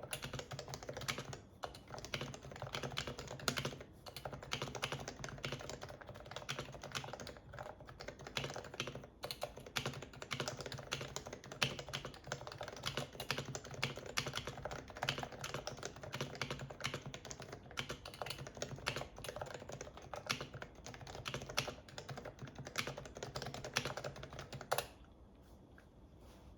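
Continuous fast typing on a Yui660c custom keyboard with stock Topre 45 g electrostatic-capacitive rubber-dome switches: a dense, even stream of keystrokes. It stops abruptly near the end after one sharper keystroke.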